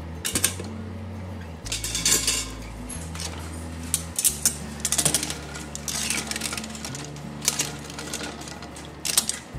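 Boiled eggs being dropped into an ice-water bath in a glass bowl, knocking and clinking against the ice cubes and the glass in scattered clusters. Background music with slow, steady bass notes runs underneath.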